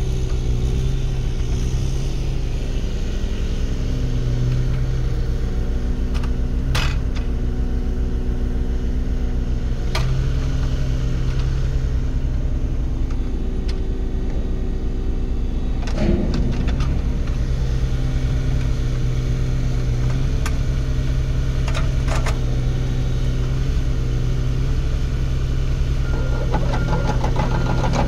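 Komatsu PC26MR-3 mini excavator's diesel engine running steadily while the hydraulics are worked, its note rising and dipping as the boom and arm move. A few sharp knocks come through, and near the end a denser rattle with a higher steady tone sets in.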